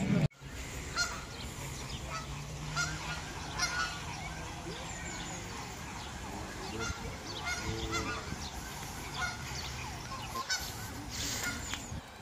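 A flock of birds honking, with many short goose-like calls overlapping and repeating.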